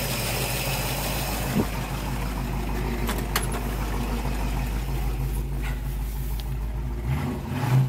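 1967 Shelby Mustang's original solid-lifter V8 idling steadily. There are a few light clicks about three seconds in and a thump near the end.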